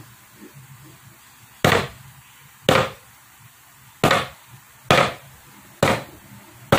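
Chopping knife coming down through a lock of hair in six sharp chops, roughly one a second.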